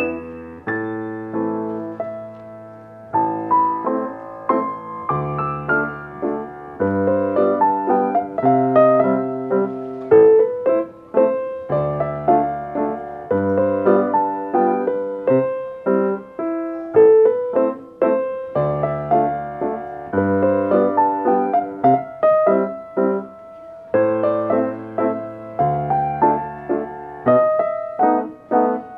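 Steinway grand piano played solo in a slow classical piece, with low bass notes every couple of seconds under chords and a melody line.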